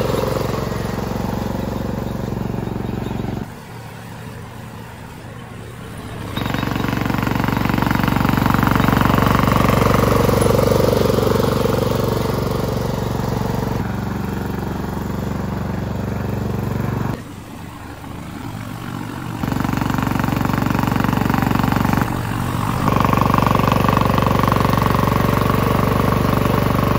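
A vehicle engine running steadily with a low rumble, broken by several abrupt cuts where the level drops and jumps back.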